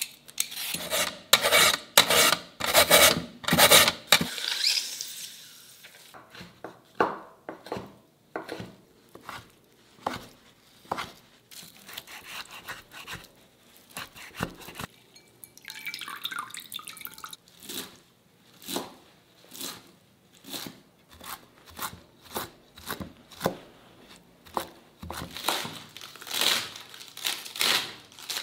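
A hand peeler scraping shreds off a carrot over a wooden board in quick strokes. Then a kitchen knife chopping shiitake mushrooms on the board in separate taps about one a second. Near the end come faster, louder chops through cabbage.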